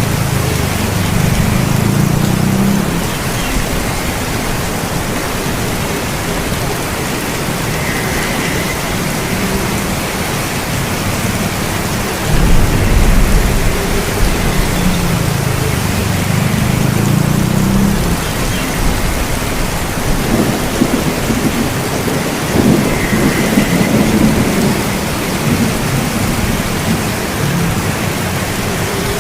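Steady heavy rain with rolling thunder. A loud low rumble breaks in suddenly about twelve seconds in, and further rumbles swell and fade later on.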